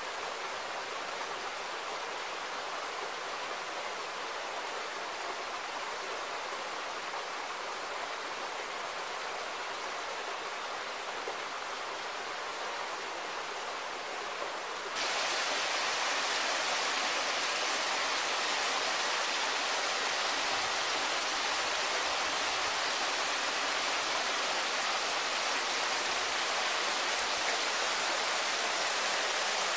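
Steady rushing of running water, an even hiss with no distinct events, which jumps abruptly louder about halfway through.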